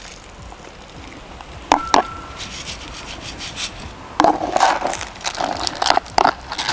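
Soaked 3 mm halibut pellets on a mesh sieve, drained of water and then tipped back into a plastic tub. Two sharp taps come a little under two seconds in, and the pellets rattle and scrape over the mesh in the last couple of seconds.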